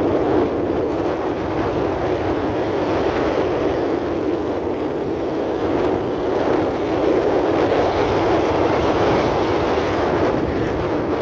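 Steady noise of a moving vehicle with wind on the microphone: an even rush with no distinct tone, unchanging throughout.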